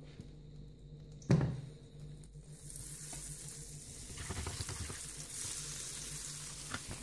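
Butter sizzling as it melts in a hot non-stick frying pan, pushed around with a spatula. A single knock about a second in, then the sizzle builds from about two and a half seconds on.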